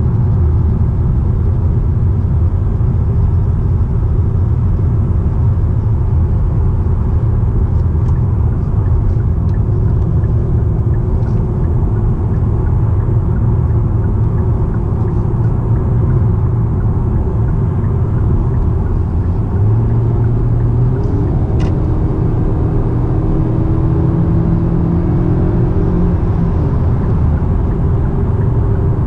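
Hyundai Sonata driving at a steady pace: a constant low rumble of road and engine noise. In the last third a faint humming tone comes in and shifts in pitch for a few seconds, then fades.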